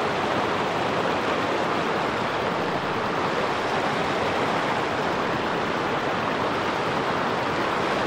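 Steady rush of a fast river riffle, water running over a shallow bed of rounded stones, at an even level throughout.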